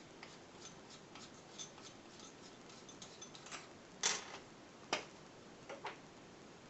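A run of light clicks and ticks from small hard parts or tools being handled, with two sharper knocks about four and five seconds in.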